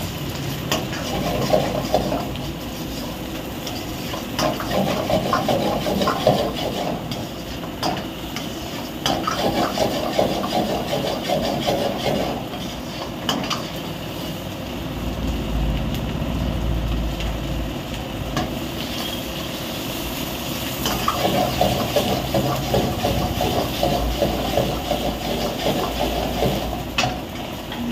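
Steel ladle stirring and scraping onions and green chillies around a black iron wok, in several spells with short clinks against the pan, over a steady hiss of frying and the gas burner.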